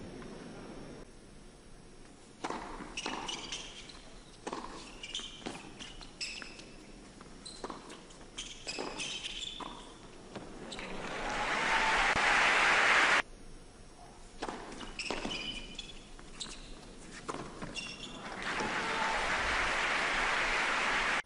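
Tennis rally in an indoor arena: racket strikes and ball bounces on the hard court, irregularly spaced, then crowd applause that swells and cuts off abruptly about thirteen seconds in. A second rally of strikes and bounces follows and again ends in building applause.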